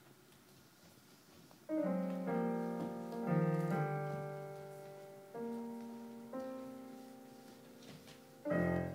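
Slow, sparse solo piano music. After a quiet pause, a cluster of notes enters about two seconds in and rings out, single lower notes follow, and a louder chord is struck near the end.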